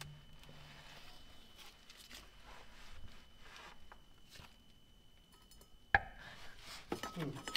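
Faint clicks and scrapes of hand tools, a socket and breaker bar, being handled, with one sharp metallic clack about six seconds in.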